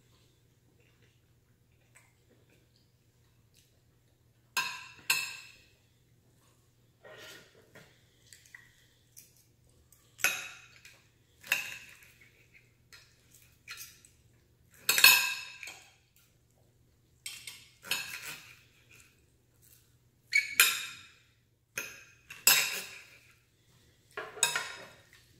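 A metal fork and a plastic knife scrape and clink against a plate as sausage is cut. A run of separate strokes starts about four and a half seconds in, and the loudest comes near the middle.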